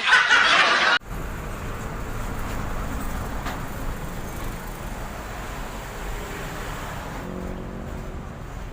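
Road traffic: a steady rumble and hiss of vehicles, opened by a louder hiss that cuts off abruptly about a second in. A faint engine hum comes in near the end.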